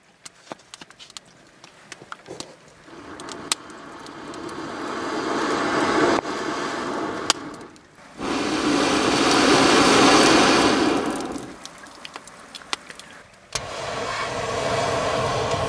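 Air blown through a telescoping pocket bellows tube into the glowing coals of a small wood-burning folding stove: three long rushing blows, the first building up gradually, the second the loudest. Sharp crackling pops from the burning wood come between the blows.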